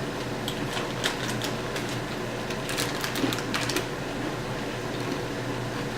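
Crunchy corn chips being chewed: irregular sharp crunches, some in quick clusters, over a steady low hum.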